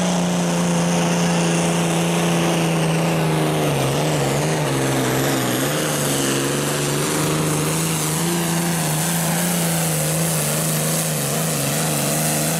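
John Deere 4010 Light Limited Super Stock pulling tractor's turbocharged diesel engine running flat out under heavy load as it drags the weight sled. Its pitch sags about four seconds in as the engine lugs down under the sled, then holds with small wavers.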